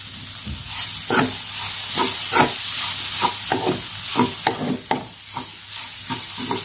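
Spatula stirring and scraping crumbled oncom around a non-stick wok in repeated strokes, about two a second, over a steady sizzle of frying as the oncom is cooked dry.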